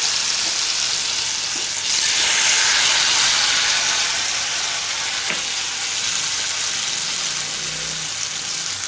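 Wheat-flour-batter-coated susiyam balls deep-frying in hot oil: a steady, loud sizzle, at its strongest a couple of seconds in and easing a little after.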